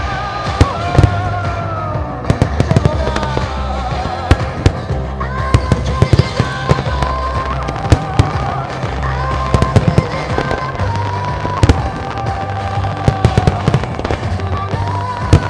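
Fireworks display: many sharp bangs of shells bursting, several close together at times, over a pyromusical soundtrack with sustained melodic lines and a heavy bass.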